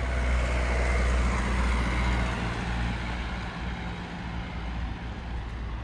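A motor vehicle's engine going by with a low, steady hum, loudest in the first two or three seconds and then fading away.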